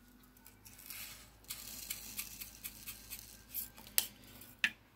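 Resin diamond-painting drills poured into a plastic sorting tray: a faint rattling patter with a few sharp clicks near the end.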